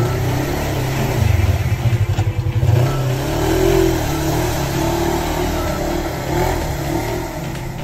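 Polaris RZR 1000 side-by-side's engine revving hard as it churns through a muddy water pit, with mud and water spraying from the tyres. A deep, pulsing engine note for about the first three seconds gives way to a higher note that rises and falls with the throttle.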